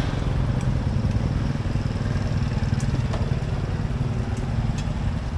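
A small engine runs steadily close by, giving a low, even hum. A few light clinks come from a spoon in a metal mixing bowl.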